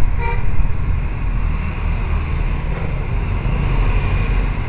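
Busy road traffic of cars and motorcycles passing close by, a steady low rumble of engines and tyres. A short horn beep sounds about a quarter second in.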